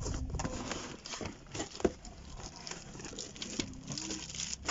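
Cardboard box and plastic packaging rustling and scraping as hands pull a packed item out of the box, with irregular crinkles and knocks; one sharper knock comes about two seconds in.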